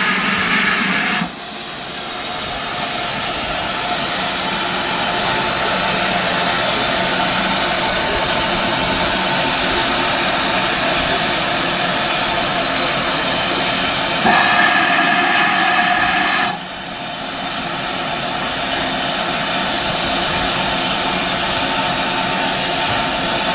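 GWR Manor-class 4-6-0 steam locomotive No. 7828 standing at the platform, hissing steam loudly and steadily. A whistle-like tone cuts off about a second in, and a second, two-note whistle tone sounds for about two seconds around two-thirds of the way in.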